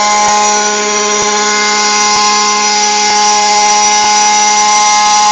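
Radio-controlled model helicopter running in flight: a loud, steady whine with a faint tick about once a second.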